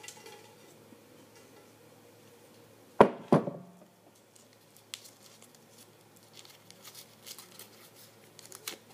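Numbered slips being drawn from a hard container: two sharp clinks about three seconds in, then scattered faint light ticks over quiet room tone.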